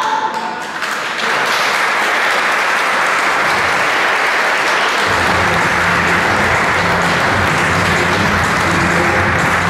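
Theatre audience applauding at the end of a scene. About five seconds in, music with a low, steady bass line starts under the clapping.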